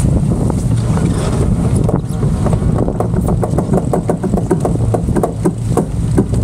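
Wind buffeting the microphone aboard a racing sailboat, a steady low rumble. About halfway through, a quick run of clicks starts, roughly five a second, and lasts about three seconds.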